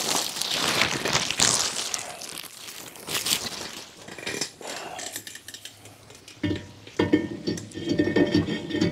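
Metal clinking and rustling as a new brake rotor is handled and fitted onto the hub. About six and a half seconds in, a steady mechanical whirring with clicks starts.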